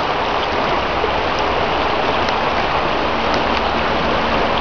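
River water flowing and rushing, a steady even noise.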